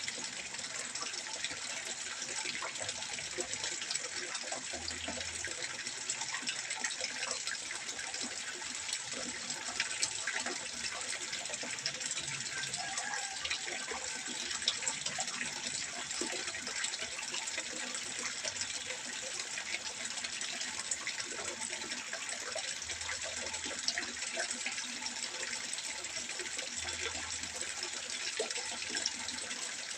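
Water trickling steadily into a fish pond: a continuous splashing with fine, irregular droplet patter.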